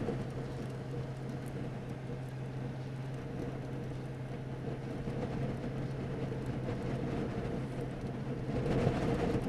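Steady in-car hum from a running car: a constant low engine drone with a faint even hiss behind it.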